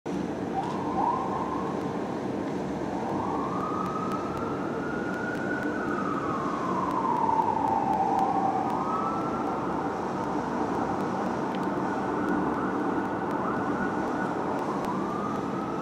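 Fire engine siren in a slow wail, its pitch climbing, sweeping down about eight seconds in, then rising again and holding high, over steady city traffic noise.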